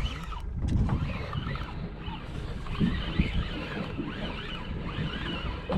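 Wind buffeting the microphone aboard a small open fishing boat, with a few irregular knocks and splashes.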